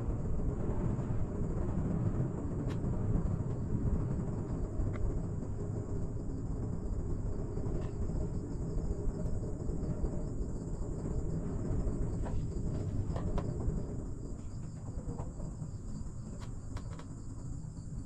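Steady low rumble of a cable car gondola in motion, heard from inside the cabin, easing a little near the end. Over it runs a continuous high, finely pulsing insect chirring, with a few faint clicks in the second half.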